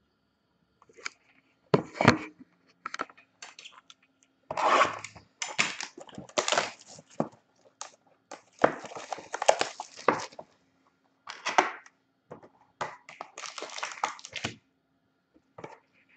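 Plastic shrink wrap being torn and crumpled off a sealed trading card box as the box is opened, in irregular bursts of crinkling and tearing with pauses between.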